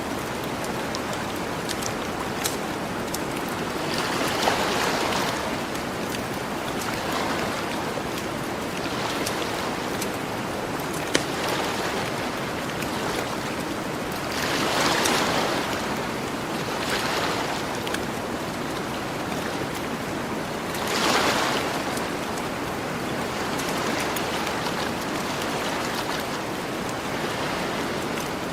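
Gentle ocean waves washing onto a beach, a swell rising and falling every several seconds, three of them louder than the rest, with a campfire crackling and giving off occasional sharp pops.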